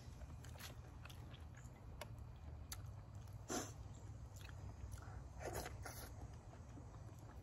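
A person chewing food close to the microphone, with a few short mouth smacks and clicks. The loudest comes about three and a half seconds in and two more follow near six seconds, over a steady low background hum.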